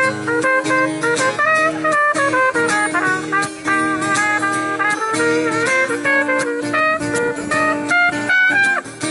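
Trumpet playing a melody line over steadily strummed acoustic guitar, an instrumental break in a country song played live.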